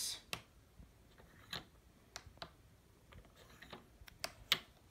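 Magnetic stacking rings clicking against each other and tapping down on a wooden desk as they are taken off their post one at a time: about ten sharp, irregular clicks, the loudest near the end.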